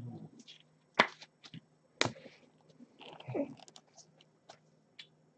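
Trading cards being handled in gloved hands: a few faint sharp clicks, two louder ones about a second and two seconds in, with soft rustling around three seconds in.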